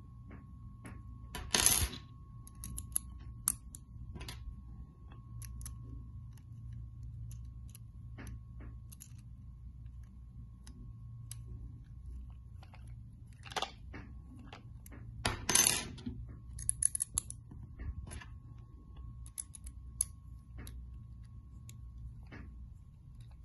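Allen key working small screws into the metal seal ring of a Drylink coupling: scattered light metallic clicks and ticks, with two louder clinks about two seconds in and about fifteen seconds in. A faint steady hum runs underneath.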